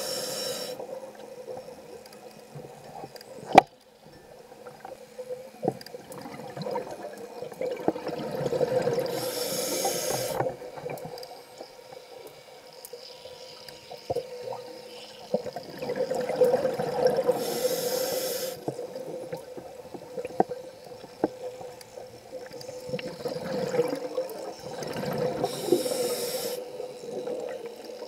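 Scuba diver breathing through a regulator underwater: a short hiss on each inhale and a rumble of exhaust bubbles on each exhale, repeating about every eight seconds. A steady low hum runs underneath, and there is one sharp click a few seconds in.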